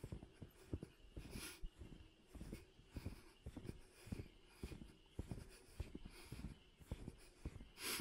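Footsteps crunching in snow at a steady walking pace, about two steps a second. Twice a brief hiss comes in, about a second and a half in and near the end.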